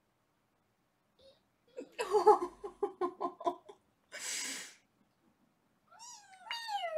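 A woman laughing in a quick run of short giggles, then a breathy exhale. Near the end a very young kitten gives two high meows that fall in pitch.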